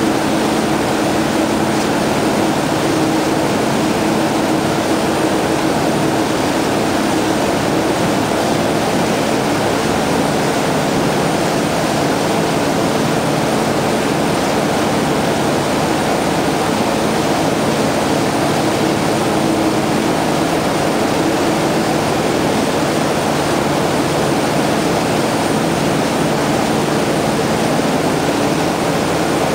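Caterpillar 3412E V12 diesel engines of a high-speed passenger ferry running steadily at speed, under the loud rush of the churning wake.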